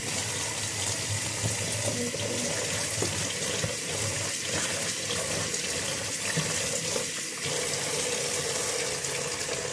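Kitchen tap running steadily into a stainless-steel sink, the water splashing as chopped water spinach stems are washed by hand.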